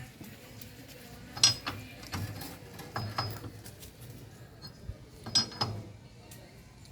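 Metal tools clinking against metal parts during motorcycle repair work: three sharp, ringing clinks about two seconds apart, with a few fainter taps between them.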